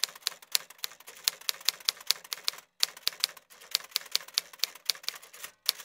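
Typewriter key strikes: a rapid, uneven run of sharp clicks, several a second, with a few brief pauses, as typed-out text appears.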